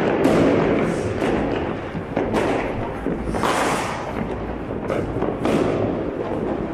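New Year's Eve fireworks and firecrackers going off all around: a dense crackle of bangs with a few louder blasts.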